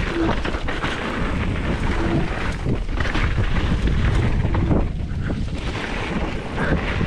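Wind buffeting the microphone of a camera on a moving mountain bike in a steady, heavy rumble, over the rattle and tyre noise of the bike rolling along a trail.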